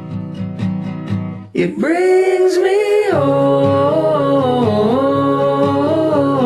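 Indie folk song with strummed acoustic guitar. After about a second and a half there is a brief break, then a sustained singing line over the guitar.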